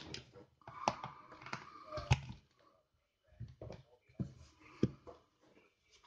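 Irregular sharp plastic clicks and knocks as a mains plug is pushed into a plastic socket adapter and its cord is handled, with a short pause near the middle.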